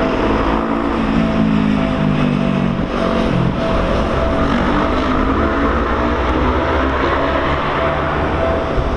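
Railway level-crossing alarm ringing in a steady repeating pattern while an electric train passes with a constant rumble. During the first three seconds or so, a whine from the train falls in pitch in steps.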